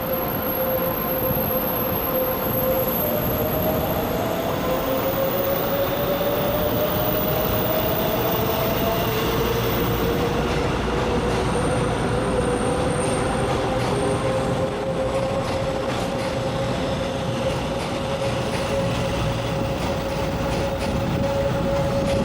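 Taiwan Railways electric train running past at steady speed: continuous rolling rumble of wheels on rail with a steady pitched whine, a second tone gliding slowly upward over the first several seconds.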